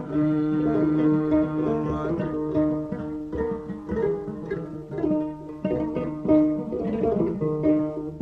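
Instrumental passage of Mauritanian Hassaniya music: a plucked string instrument plays a melodic line of quick picked notes, some held longer, with no singing.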